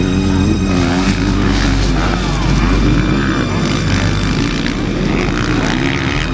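Motocross bikes' engines revving hard at race speed, the pitch rising and falling as the throttle opens and closes.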